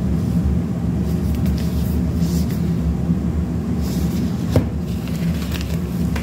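A steady low rumble under the light rustle and scrape of packaging being handled, a cardboard product box and a mailer bag, with one sharp click about four and a half seconds in.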